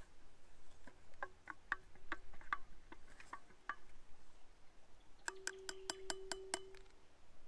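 A metal spoon stirring coffee in a metal bottle and clinking against its walls. A run of light clinks is followed, after a short pause, by a quicker run of about seven clinks a second that sets the bottle ringing.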